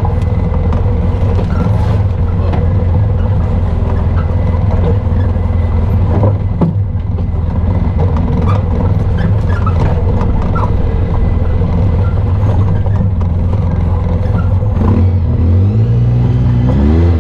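Off-road vehicle engine running steadily at speed, with scattered short knocks and rattles, then revving up with a rising pitch near the end.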